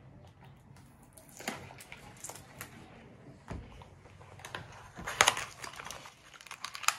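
Toy packaging crinkling and rustling in irregular bursts as it is handled and opened, loudest about five seconds in, with a dull thump about three and a half seconds in.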